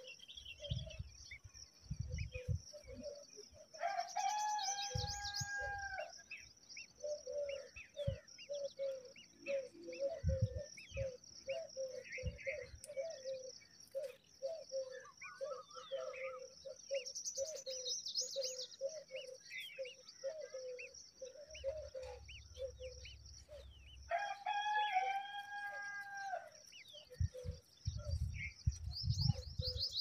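A rooster crowing twice, each crow about two seconds long, over a steady high insect drone. Between the crows runs a string of low, evenly repeated notes, with scattered high bird chirps.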